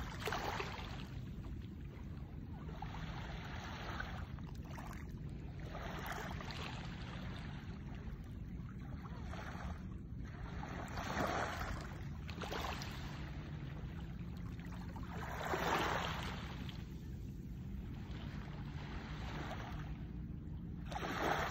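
Small waves washing up onto a pebbly sand beach and draining back, each wash a swelling hiss every few seconds, the loudest about 11, 16 and 21 seconds in, over a steady low rumble.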